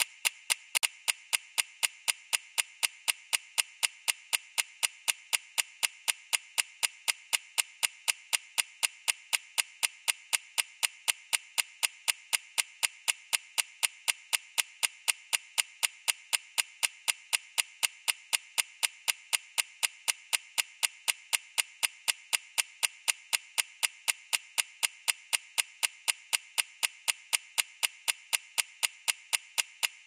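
Clock ticking sound effect: quick, evenly spaced sharp ticks, a few each second, steady throughout.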